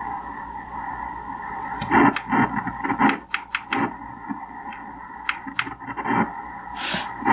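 Drake 2-B vacuum-tube receiver's speaker playing the hiss and static of a ham band while being tuned, with steady whistling tones and distorted, garbled signals, and sharp static crackles clustered a few seconds in.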